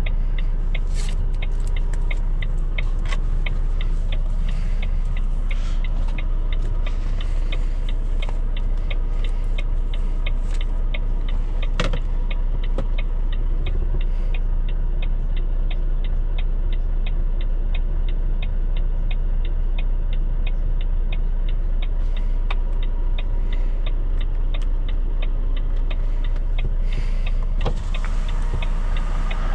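Volvo FM4 truck's diesel engine running steadily under way, heard from the cab, with a light regular ticking over it and an occasional click.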